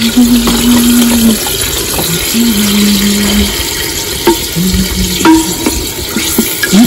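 Blended tomato mixture poured from a plastic tub into an aluminium pot, then a wooden spoon stirring the sauce and knocking a few times against the pot. A low held hum comes and goes behind it, changing pitch every second or so.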